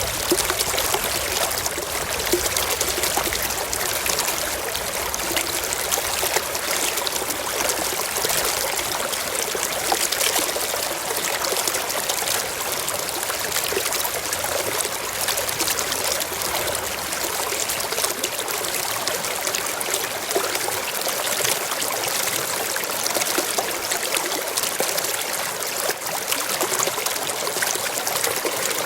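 Mountain stream flowing and splashing over rocks: a steady, even rush of water with fine trickling detail.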